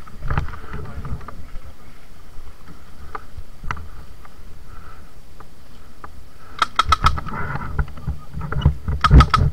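Steady low rumble of wind and handling noise on the microphone. About two-thirds of the way in comes a quick run of sharp cracks, several in half a second, and more start near the end: an airsoft gun firing a burst.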